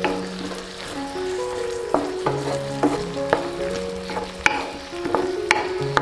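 Green beans and carrot strips sizzling in oil in a nonstick wok as a wooden spatula stirs them, with several sharp clicks of the spatula against the pan, the loudest about four and a half and five and a half seconds in. Background music plays along.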